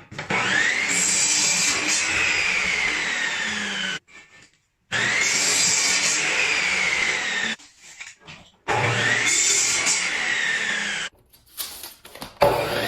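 Electric power tool motor run in three bursts of about four, two and a half and two and a half seconds, with gaps of about a second. Each time the whine climbs quickly as the motor spins up, then slowly drops in pitch, and each burst stops suddenly.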